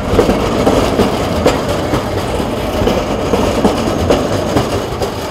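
Articulated low-floor tram passing close on street track, its wheels rumbling steadily over the rails with irregular sharp clacks.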